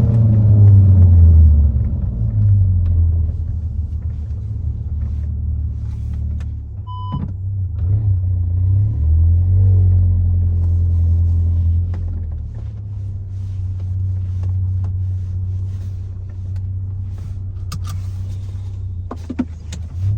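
Seat Cupra's turbo four-cylinder exhaust, straight through with the downpipe and resonator delete, running with a deep low rumble. The engine note falls as the revs drop at the start, rises briefly about nine seconds in, then settles at low revs. A short beep sounds about seven seconds in.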